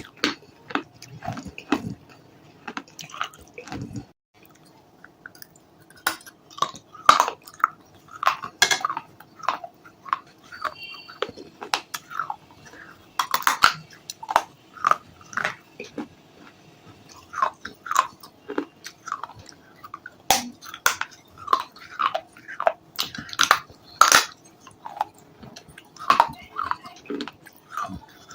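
Close-up chewing and biting with sharp, crisp crunches in an irregular run, pausing briefly about four seconds in.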